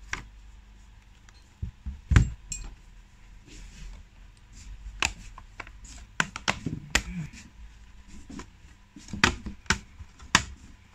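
Handling noise from a Samsung Galaxy Tab Active Pro (SM-T545) on a silicone repair mat: a heavy knock about two seconds in as the tablet is turned over and set down, then scattered sharp plastic clicks as its battery back cover is prised loose at the edge.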